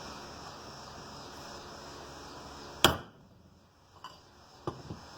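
A mini sledgehammer strikes a metal pipe once, a sharp loud tap about three seconds in, followed by two fainter knocks. The blows are driving a steering stem bearing down onto a dirt bike's lower triple clamp a little at a time.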